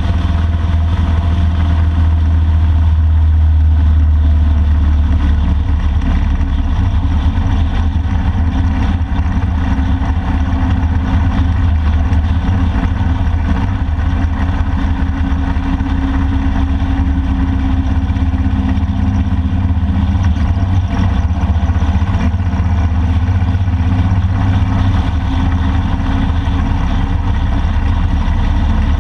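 Motorcycle riding at a steady speed: the engine runs evenly under a strong, steady rush of wind and road noise on a front-mounted camera.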